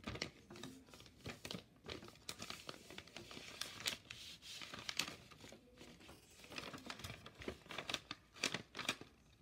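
A sheet of white paper being folded and creased by hand, in a string of short, irregular rustles and crinkles.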